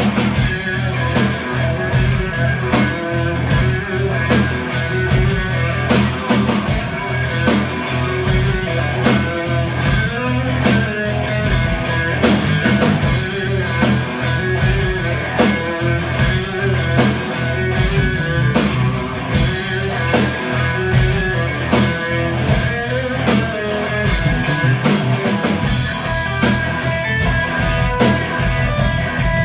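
Live blues-rock trio playing an instrumental passage: electric guitar over electric bass and a drum kit, with a steady beat and no singing.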